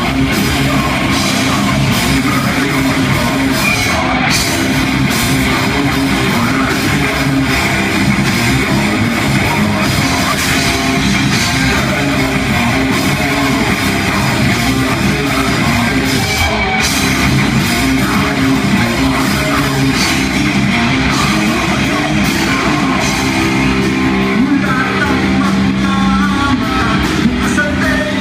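Live band playing loud heavy rock: distorted electric guitars, bass and a drum kit, unbroken and dense.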